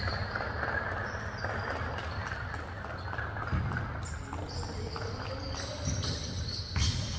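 Basketball game sounds: short high sneaker squeaks on the court over a murmur of voices, with one sharp bang near the end, likely the ball.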